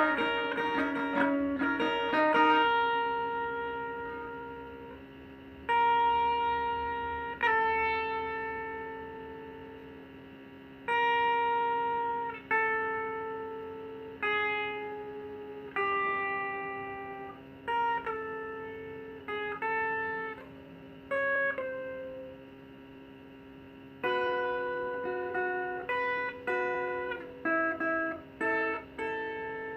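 Guitar played slowly, with single notes and chords plucked and left to ring out and fade, over a steady low held tone. The plucks come closer together in the last few seconds.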